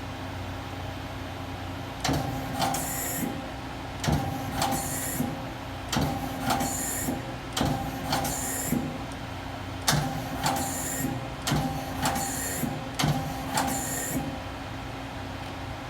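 Doosan Lynx 300 CNC lathe running with a steady hum while repeating a mechanical cycle about every two seconds: a clunk followed by a short high hiss each time, about seven times, stopping shortly before the end.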